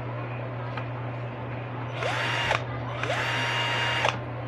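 Ingco 12V cordless drill's motor spinning freely, run twice: a short burst about two seconds in, then a longer one of about a second. Each time it whines up in pitch as the trigger is squeezed, holds steady, and drops off sharply on release.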